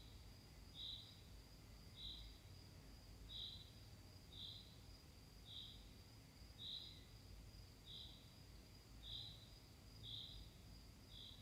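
Near silence: faint room tone with a high chirp repeating about once a second over a faint steady high tone.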